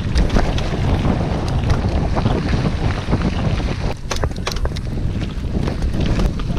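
Wind buffeting a helmet-camera microphone as a mountain bike rolls along a gravel dirt road. Sharp clicks and rattles from the bike over the rough ground cut through, with a cluster of them about four seconds in.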